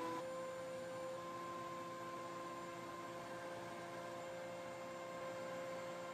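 Thickness planer running steadily: an even motor hum with a few held tones over a light hiss.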